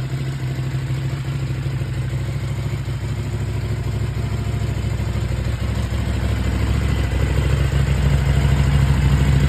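KTM 790 Duke's 799 cc parallel-twin engine idling steadily, growing a little louder near the end.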